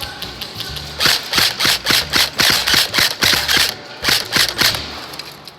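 Airsoft gun firing a rapid string of shots, about four a second, with a brief pause near the end before a last few shots.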